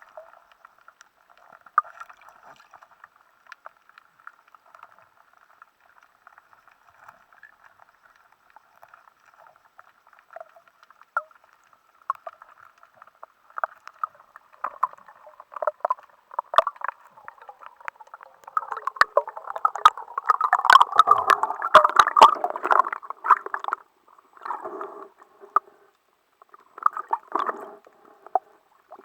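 Muffled underwater water noise, gurgling and crackling with scattered clicks, with a louder stretch of bubbling and churning water about two-thirds of the way through and shorter bursts after it.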